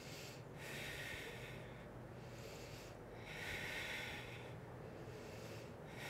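A woman breathing slowly and audibly during a held yoga plank, a soft breath about every two and a half to three seconds.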